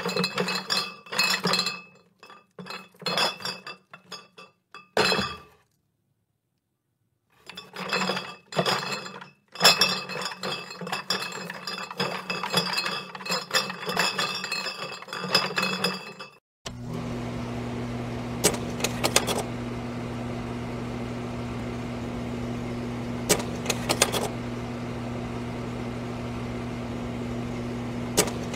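Glass clinking and knocking in irregular bursts over a low hum, stopping for a couple of seconds partway, then a steady electrical hum with a few sharp clicks.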